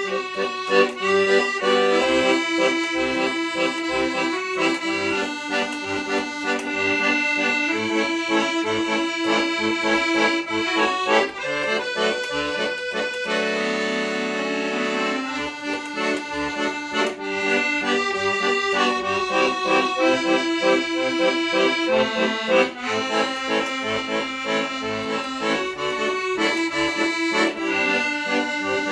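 Accordion playing a tune: a melody of held notes over regular short bass strokes, with a long sustained chord about halfway through.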